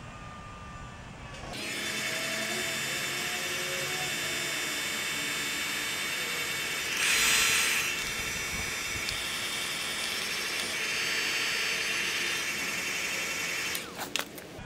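Electric heat gun switched on about a second and a half in and running steadily, its fan blowing hot air onto heat-shrink tubing over a wire splice. It is briefly louder around the middle and is switched off near the end with a couple of clicks.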